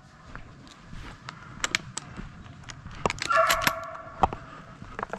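Footsteps crunching along a dirt road covered in dry leaves, with scattered clicks from carried gear. A short pitched sound breaks in about three seconds in.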